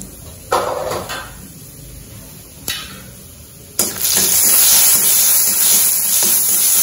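Urad dal tipped by spoon into hot ghee in an iron kadai. After two short sizzles, it sets up a loud, steady sizzle about four seconds in as the tempering starts to fry.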